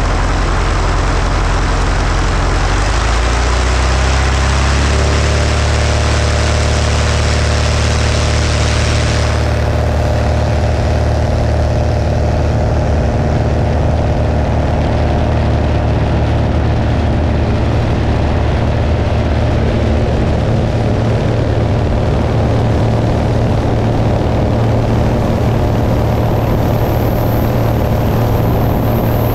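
Van's RV-9A light aircraft's piston engine and two-blade propeller powering up for takeoff: the engine note rises over a couple of seconds, then runs steady at high power. A loud hiss over the engine drops away about ten seconds in.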